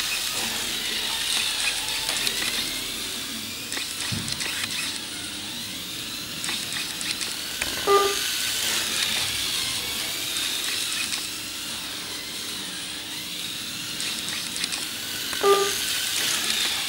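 Analog slot car's small electric motor whining, with its pickup braids hissing along the track rails as it laps under computer control; the whine wavers up and down as its speed changes. A short beep sounds twice, about eight seconds apart.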